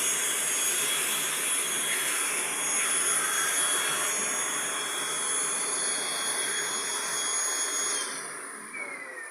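Kirby vacuum cleaner running steadily with a high whine, then switched off about eight seconds in, its pitch falling as the motor winds down.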